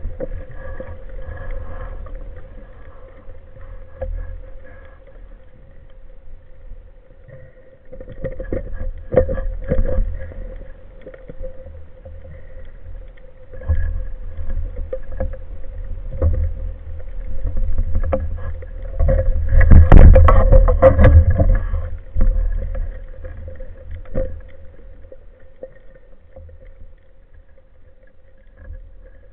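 Underwater sound picked up by a camera mounted on a speargun: a low water rumble and a steady thin hum, with scattered knocks and clicks from the diver handling his gear and catch, loudest around twenty seconds in.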